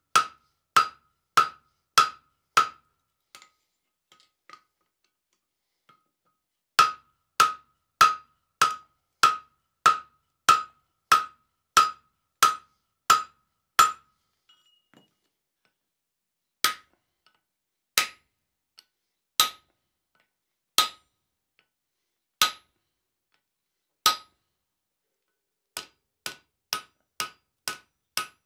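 Blacksmith's hand hammer striking hot 5160 steel on the anvil, each blow with a short metallic ring. A quick run of blows is followed by a pause and then a longer steady run. Slower single blows come about a second and a half apart, and a few lighter, quicker blows come near the end.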